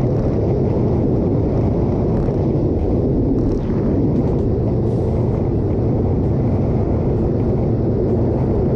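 Steady rush of wind and road noise on the microphone of a motorbike riding at about 75–80 km/h.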